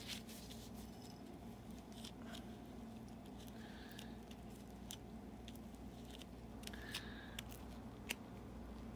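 Faint scattered clicks and light rustling of gloved hands working on an outboard motor's lower-unit gear case, with the sharpest click a little after eight seconds in, over a steady low hum.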